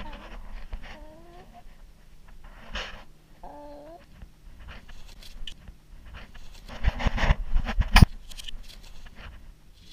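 Chicken giving two short, wavering calls, about a second in and again around three and a half seconds. Rustling of feathers and handling noise against the microphone, loudest around seven to eight seconds, with a sharp knock near eight seconds.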